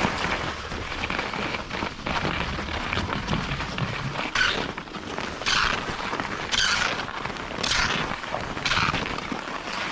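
Skis sliding over packed-powder snow, with wind on the microphone. From about halfway through comes a scraping hiss of the skis on the snow, repeating roughly once a second.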